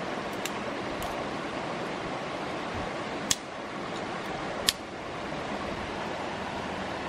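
Steady rush of a stream flowing over rocks, with two sharp snaps of dry sticks broken by hand, a little over three seconds in and again near five seconds.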